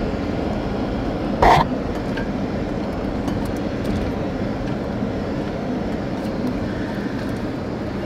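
Steady cabin noise inside a Toyota Tacoma pickup driving along a gravel and dirt trail: engine running and tyres rolling over the rough ground, with one sharp knock about a second and a half in.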